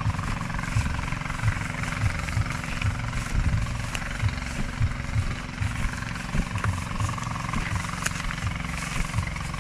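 Wind buffeting the microphone: an irregular low rumble over a steady hiss.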